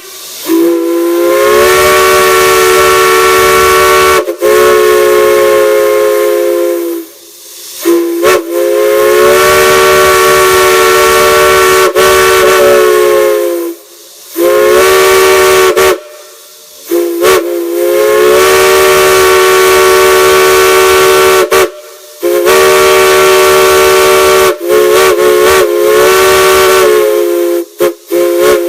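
Multi-chime steam whistle blown in a series of long blasts with short breaks between them, sounding a chord of several notes over a hiss of steam. Each blast slides slightly up in pitch as the valve opens, and a few quick toots come near the end.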